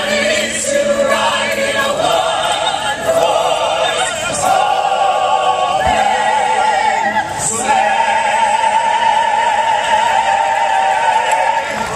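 A mixed group of singers singing a Christmas carol together through microphones, ending on one long held note over the last few seconds.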